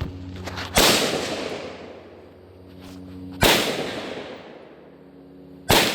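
Three gunshots about two and a half seconds apart, each ringing out with a long echo, over a steady low hum.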